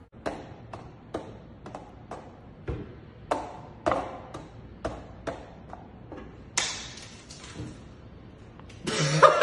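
A run of sharp taps and slaps, two or three a second, with a louder hit about six and a half seconds in.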